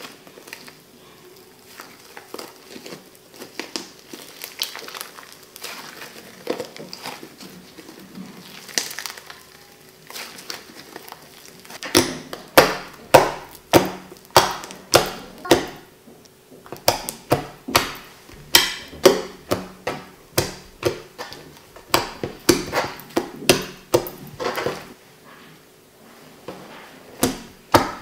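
Fluffy shaving-foam slime worked by hands: soft crackling as it is stretched, then from about twelve seconds sharp pops, roughly two a second, as fingers press and poke it against a tabletop.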